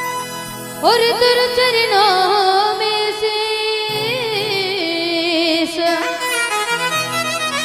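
Rajasthani bhajan music: a melodic lead enters about a second in, sliding up into long ornamented notes that waver in pitch over a steady sustained drone.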